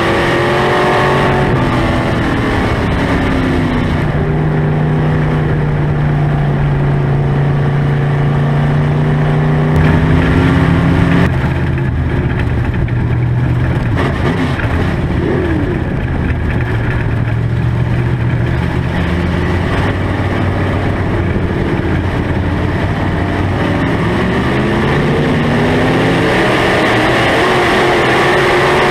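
A dirt-track SportMod race car's V8 engine under racing load, heard from inside the cockpit. The engine note falls off at the start, holds steady for several seconds, drops again about a third of the way in, and climbs back up near the end as the throttle comes on again.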